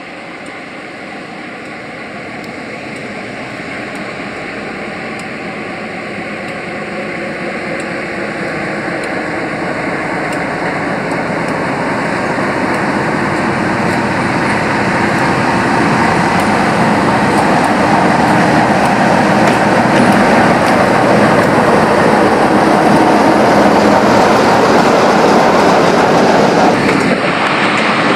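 BR Class 45 'Peak' diesel-electric locomotive D123 approaching with a train of coaches. Its Sulzer twin-bank diesel engine grows steadily louder for about 18 seconds as it draws near, then stays loud as it passes close.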